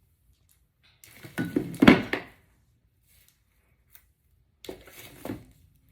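Handling noise: rustling and light knocks of things being picked up and moved, in a loud burst about a second in and a weaker one near the end.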